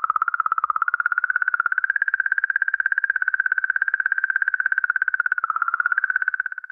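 Comet 67P/Churyumov–Gerasimenko's 'singing comet' sound, magnetic-field oscillations recorded in space and made audible. It is one high, rapidly pulsing tone, somewhat like a dolphin, that wavers slightly in pitch and fades out at the end. Scientists think it comes from plasma oscillating in the comet's magnetic field.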